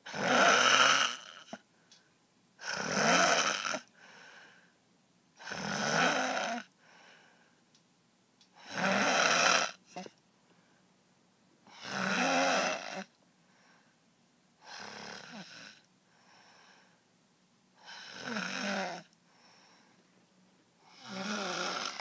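A person snoring loudly: eight long snores about three seconds apart, with fainter breaths between them. The snores grow somewhat quieter in the second half.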